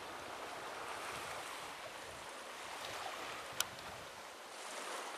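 Steady seaside noise of a light breeze and gentle sea wash at the shore, with one sharp click about three and a half seconds in.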